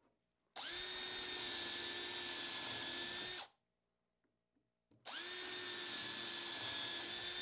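Cordless drill running at a steady speed, boring bolt holes through a laminated chipboard block. It runs twice, about three seconds each time, with a pause of about a second and a half between.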